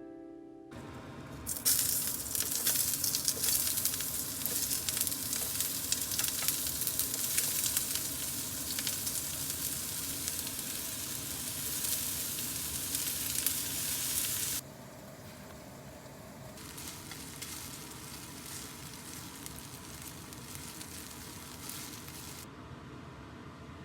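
Food sizzling as it fries in a hot pan, the crackle starting about two seconds in. About two-thirds of the way through it drops sharply to a quieter sizzle.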